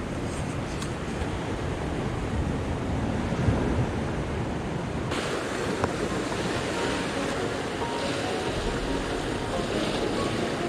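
Sea surf breaking on rocks, a steady rushing wash with wind on the microphone. The sound shifts abruptly and becomes brighter about five seconds in.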